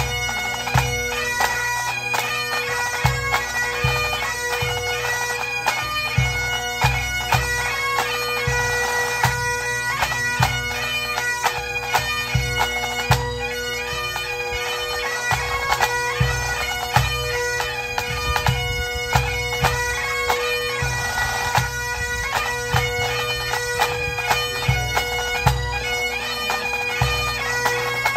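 Pipe band playing: Great Highland bagpipes sounding a tune over their steady drones, with snare and bass drums beating time.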